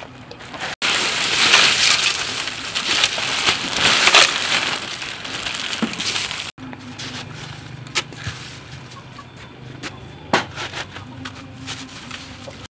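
Crushed ice being heaped and spread by hand over melon halves in an aluminium basin: a loud, dense crunching rattle that starts suddenly about a second in and stops suddenly some six seconds later. After that it is quieter, with a couple of sharp knocks as pieces of fruit are set down on the ice.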